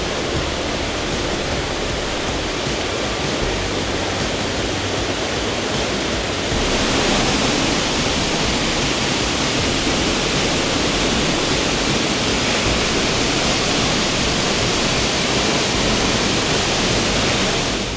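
Waterfall, a steady rush of falling water. It grows louder and brighter about six and a half seconds in.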